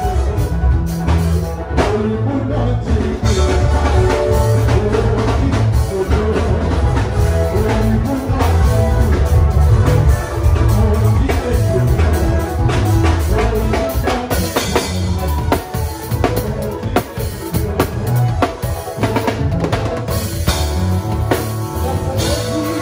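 Band music with a drum kit keeping a steady beat of kick and snare over bass notes.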